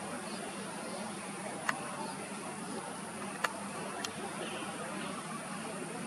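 Steady outdoor ambience of a continuous high-pitched insect drone over a low steady hum, broken by three short, sharp clicks in the middle.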